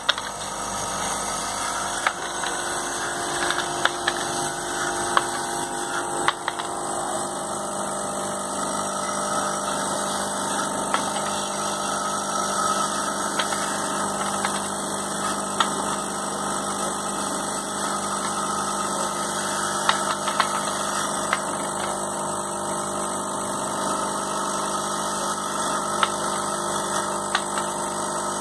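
Vibratory bowl feeder running: a steady electromagnetic hum with the rattle of a bowl full of small stamped metal parts being shaken, and occasional sharp clicks.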